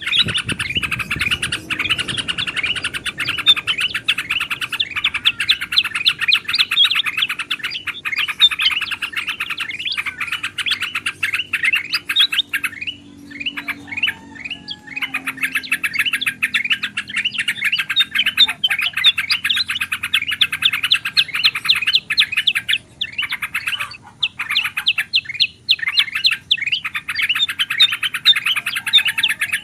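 Bulbuls chattering in a dense, fast run of chirps, the noisy calling used as a bird lure, with short lulls about halfway through and again a few seconds before the end.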